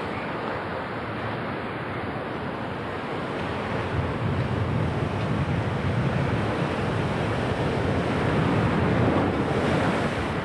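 Rough sea waves breaking and splashing against a concrete sea wall, with strong wind buffeting the microphone; it grows louder about four seconds in.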